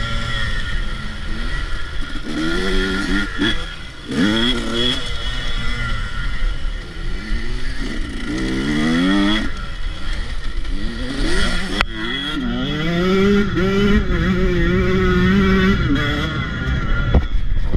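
Dirt bike engine heard from on board, revving up through the gears in repeated rising climbs, then holding a steady high pitch at full throttle for a few seconds, over a low rumble of wind on the microphone. A sharp knock is heard about twelve seconds in.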